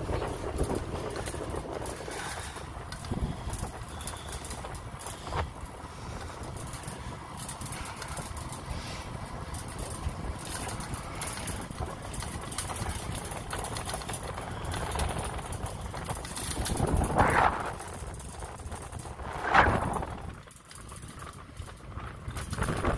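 Wind rushing over the microphone and the tyres of a bicycle rolling along a paved path, with two louder rushes in the last third.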